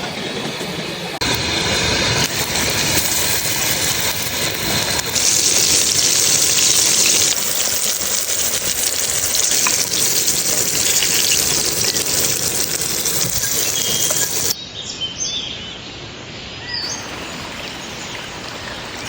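Chicken lollipops deep-frying in hot oil, a dense steady sizzle that jumps abruptly in level at several cuts and drops quieter near the end.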